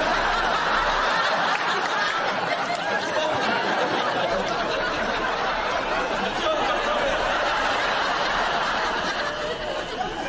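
Studio audience laughing: a sustained wave of laughter from many people that breaks out suddenly and dies down near the end.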